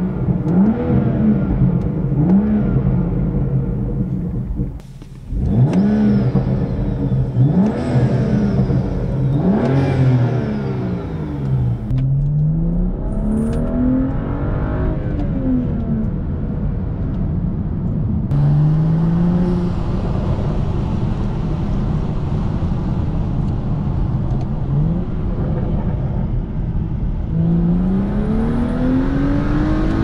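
BMW 335i's N55 turbocharged 3.0-litre inline-six with the stock air intake, revved in a series of quick blips while parked, then a slower, longer rev, its pitch rising and falling with engine speed. From about 18 s on it runs under load while driving, heard from inside the cabin, with a few long pulls where the pitch climbs.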